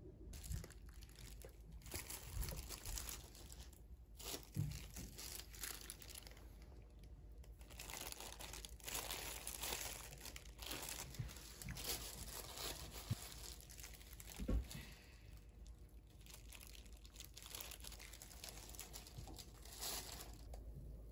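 Crinkling and rustling of a disposable plastic glove as food is handled, with a few light knocks.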